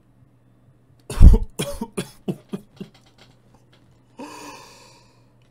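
A man bursts out laughing: one loud first burst about a second in, then a quick run of shorter laughs that fade away, followed by a breathy intake a little after four seconds.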